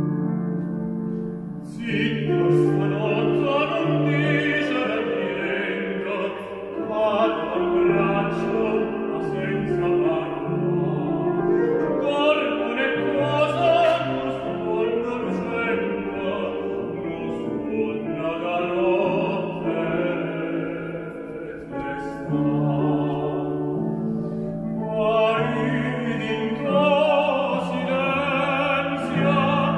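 Operatic tenor singing a Neapolitan song, accompanied by a grand piano. The piano plays alone for the first two seconds before the voice comes in, and the voice pauses briefly about three quarters of the way through while the piano carries on.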